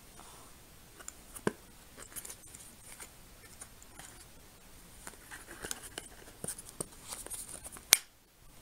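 Hands handling a smartphone and its plastic case: scattered small clicks, taps and rustles, with a sharp click about a second and a half in and a louder one near the end.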